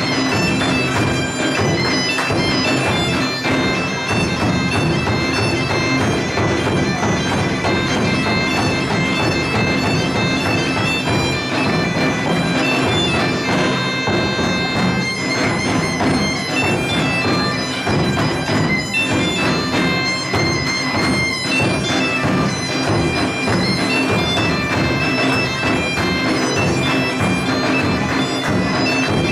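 Portuguese bagpipe (gaita de foles) playing a tune over its steady drone, accompanied by a snare drum and a large bass drum beaten with sticks.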